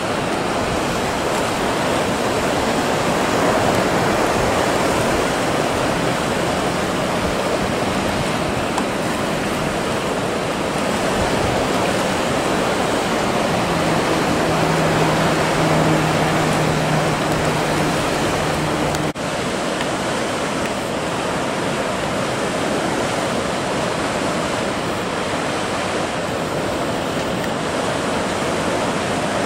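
Steady rush of sea swell and breaking waves. From about halfway through, a low motorboat engine hum joins in, and both cut off suddenly about two-thirds through before the wave rush resumes.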